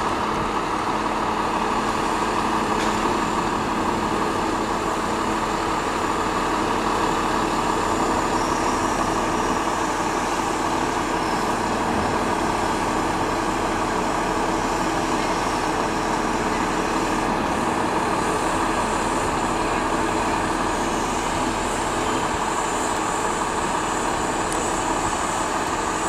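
Scania 420 truck's diesel engine running steadily, driving the hydraulics of its truck-mounted 36 m aerial platform while the boom is raised.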